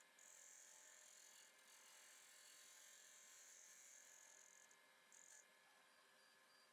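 Near silence: faint room tone with a thin high hiss that drops out briefly and stops about five seconds in.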